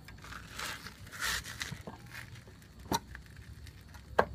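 A 17 mm spanner turning the bolt of a puller that presses the crankshaft out of a Yamaha 135LC crankcase: soft scraping, then two sharp metal clicks, one about three seconds in and one near the end.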